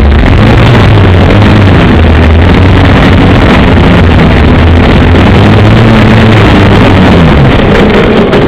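Engine of a radio-controlled Piper J-3 Cub model plane running at a steady pitch, which wavers and then drops about seven seconds in.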